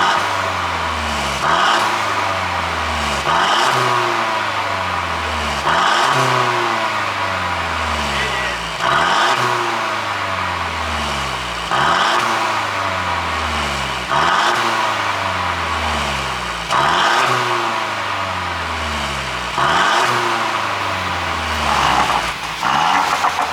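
Mercedes E200 Cabriolet's turbocharged four-cylinder blipped about ten times, every two to three seconds, each rev dropping back with popping and crackling from the exhaust on the overrun. The pops come from an ECU pop-and-bang tune.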